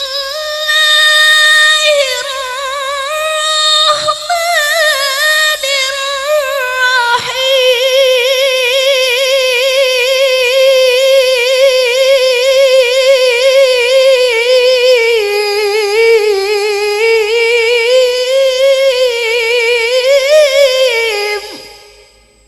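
A Quran reciter's voice in tilawah, the melodic style of Quran recitation, holding one long, high, ornamented phrase with a wavering vibrato. It fades out about a second before the end.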